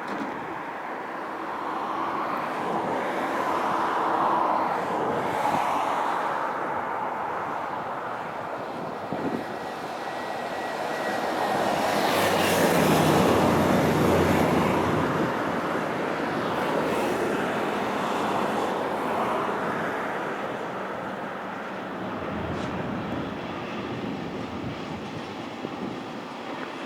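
A passing train: steady rail and wheel noise that swells about halfway through, with a locomotive's low engine hum at its loudest point.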